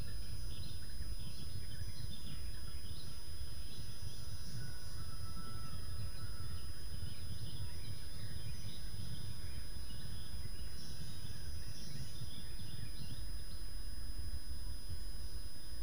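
Outdoor ambience of scattered birds chirping and singing over a steady low rumble, with a thin high steady tone underneath.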